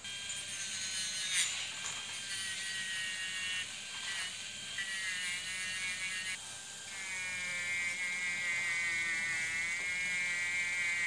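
Proxxon mini rotary tool (hand router) running with a steady high whine, its small wheel grinding and polishing the tip of a steel watch case opener blade; the pitch shifts a few times as the wheel works against the metal.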